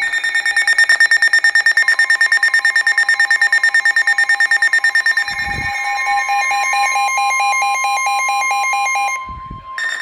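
Weather radio alert alarms sounding for a severe thunderstorm warning: rapid electronic beeping, with a steady single-pitch warning tone joining about two seconds in. About five seconds in, the beeping turns into a steady electronic alarm. It stops near nine seconds, and the beeping starts again at the very end.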